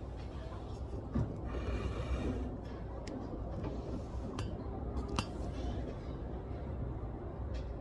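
Library ambience: a steady low hum of the room with scattered small clicks and taps and a brief rustle about two seconds in.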